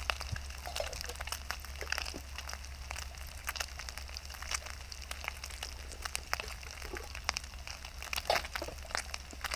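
Wood fire in a Solo Stove Titan crackling and popping under a frying pan, a steady scatter of sharp little clicks. Footsteps crunch over leaf litter at the start.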